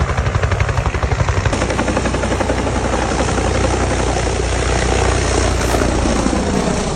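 Helicopter running close, its rotor beating in fast even pulses for the first second and a half, then settling into a steady drone.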